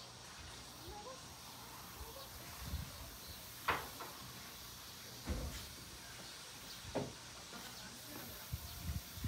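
Quiet rural outdoor ambience with a faint chirp about a second in and three short sharp taps about a second and a half apart, over soft low rumbling.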